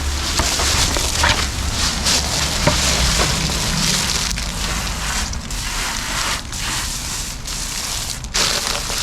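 Pressure washer spraying high-pressure water onto stone paving, a steady hiss over a low engine hum. The spray cuts out briefly about four times in the second half.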